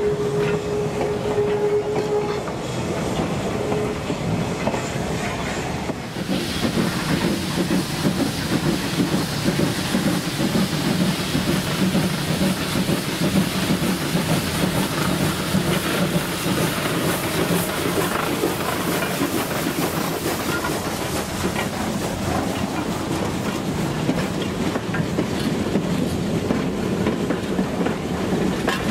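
A slow train rolling by with its wheels clattering, a thin steady squeal for the first two seconds. From about six seconds in, the 1916 two-truck Heisler geared steam locomotive works past close by with its train of log cars and open passenger cars: continuous rapid clatter with steam hiss.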